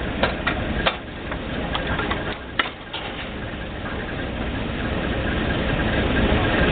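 Engine of a Failing 1250 drilling rig running, growing steadily louder over the second half, with a series of sharp clicks and knocks in the first three seconds.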